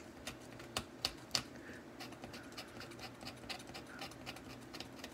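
Razor blade scraping dried watercolor paint off the paper in short, irregular strokes, a faint dry scratching, lifting the paint back to bare white paper for a highlight. A few strokes about a second in are louder.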